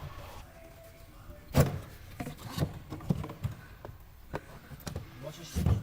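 A series of knocks and clicks from parts and tools being handled during engine-bay disassembly. The loudest is a thump about a second and a half in, and there is another heavy knock near the end.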